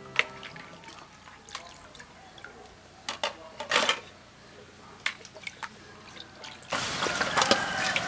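Water being handled in a basin: scattered splashes and drips, then a steady rush of running or poured water starting about seven seconds in.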